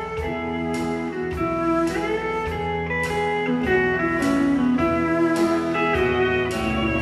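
Live country band playing an instrumental break: a lead line with gliding notes over guitars, bass and a drum beat marked by cymbal strikes.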